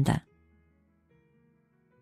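Soft background music of held notes, changing slowly, with the last syllable of a narrator's speech at the very start.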